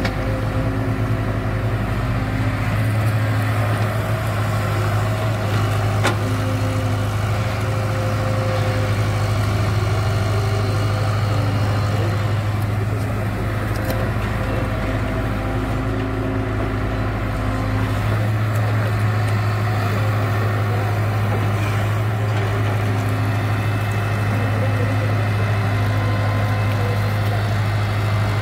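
Diesel engine of a JCB tracked excavator running steadily under load as it digs and loads mud, a continuous low drone.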